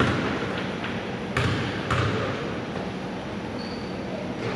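A basketball bouncing twice on a hardwood gym floor, about half a second apart, over the steady murmur of a gymnasium.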